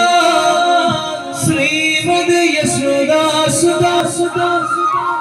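Intro music: a man singing long, wavering held notes.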